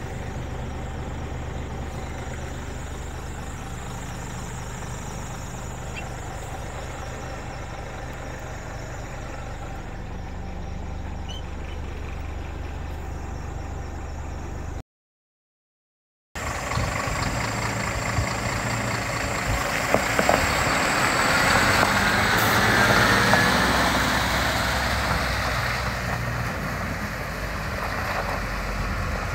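Scania R480 hooklift truck's diesel engine idling steadily, heard from inside the cab. After a short break the truck is heard from outside pulling away across a gravel yard, its engine growing louder and then easing off.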